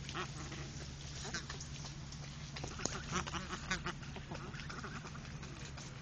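Geese calling in short runs of quick cackling notes, several times, over a steady low hum.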